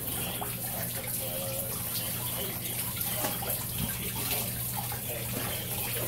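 Water from a homemade vortex fountain swirling and splashing steadily as it drains through the centre hole of a glass container into the bucket below, over a steady low hum from its 650 GPH water pump.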